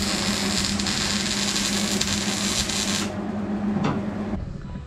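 MIG welder arc crackling and buzzing steadily while welding car-body sheet steel. The crackle cuts off about three seconds in, leaving a lower hum that stops about a second later.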